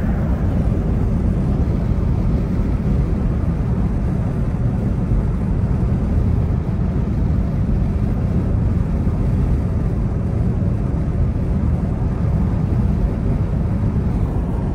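Steady low road and engine noise heard from inside the cabin of a car driving at a constant speed.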